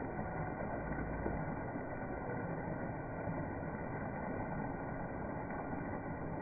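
Steady, dull background noise with no distinct events.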